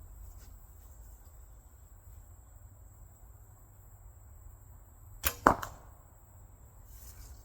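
A recurve bow being shot: two sharp snaps about a fifth of a second apart, the second louder, as the arrow is loosed.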